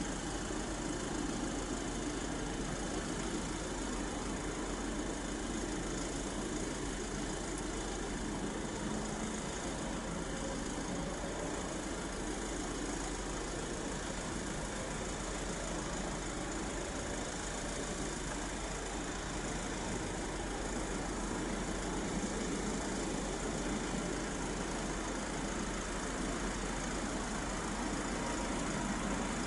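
An Airbus A220-300's Pratt & Whitney PW1500G geared turbofans running at taxi idle, a steady distant hum that gets slightly louder near the end.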